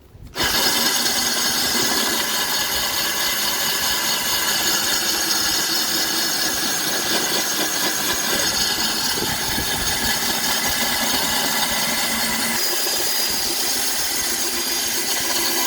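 Cordless drill spinning a 1.5-inch coring bit, grinding a water-cooled hole through tile. It starts suddenly about half a second in and then runs steadily, its tone shifting slightly about twelve seconds in.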